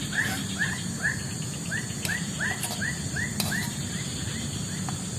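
A bird calling a quick, regular series of short arched chirps, about three a second, that fade out after about three and a half seconds, over a steady high background hiss.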